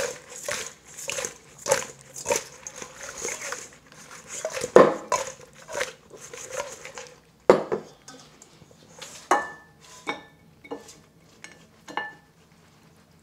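Sauced chicken wings tossed in a stainless steel mixing bowl, sliding and knocking against the metal about twice a second, with a couple of heavier knocks. Near the end a few ringing clinks come as the bowl's rim knocks against a ceramic bowl while the wings are tipped out.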